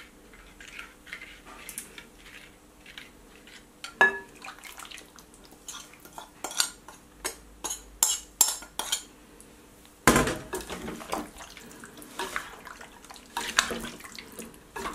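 Raw chicken wings being mixed with marinade in a glass bowl: clinks and knocks of a dish and a metal utensil against the glass, with wet sounds of the coated wings being turned. A sharp knock about 4 s in, a quick run of clinks a couple of seconds later, another sharp knock at about 10 s, then steadier mixing clatter.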